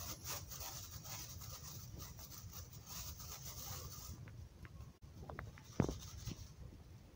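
Dry baking soda powder being pressed and crushed by hand: a grainy crunching hiss for about four seconds, then a few sharp crackles, the loudest just before six seconds in.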